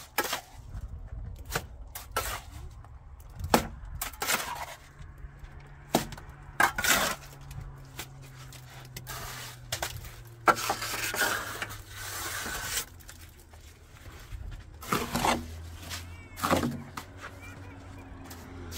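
Hand tools knocking and clinking on hard building materials during pipe and cement work: a string of irregular sharp knocks, with a few seconds of rougher noise about halfway through, over a low steady hum.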